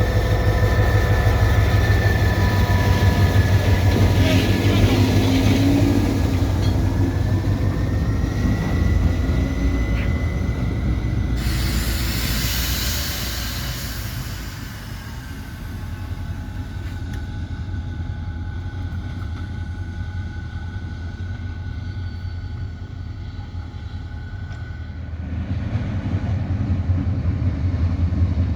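EMD GT26 diesel-electric locomotive with a passenger train, its engine rumbling heavily under several high whining tones that rise slightly. A loud burst of hiss comes about twelve seconds in. The sound then drops quieter, leaving a single high tone, and the rumble swells again near the end.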